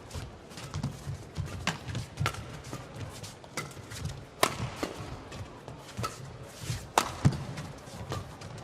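Badminton rackets striking the shuttlecock in a fast rally: sharp cracks about once a second, the loudest about four and a half and seven seconds in, with low thuds between them.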